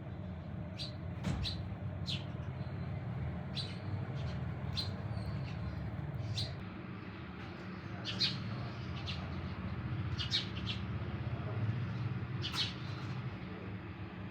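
Small birds chirping: short, sharp, high chirps at irregular intervals over a steady low hum.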